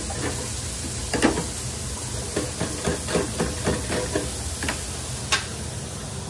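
Fries frying in a commercial deep fryer, a steady hiss of bubbling oil over a low hum. There is a sharp knock about a second in, a run of quick clicks and knocks in the middle, and one more knock near the end.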